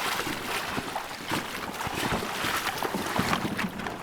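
Water splashing and knocking around a canoe as it is paddled in toward the bank, with wind buffeting the microphone.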